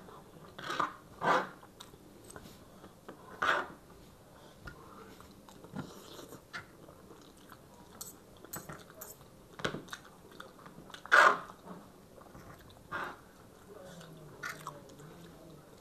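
Chewing and mouth sounds of people eating chowmein noodles and chicken chilli, with forks scraping and clicking against the food tray. Scattered short sharp clicks, the loudest about eleven seconds in.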